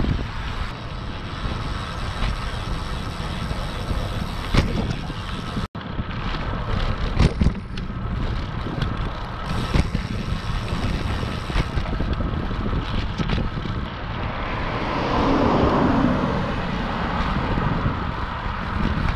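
Wind rushing over a handlebar-mounted camera microphone on a moving road bicycle, with a few sharp knocks. The sound cuts out for an instant a little before the middle, and swells for a couple of seconds near the end.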